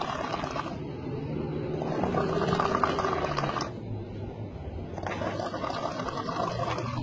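A person snoring, a rasping, rumbling snore that swells with each breath about every three seconds.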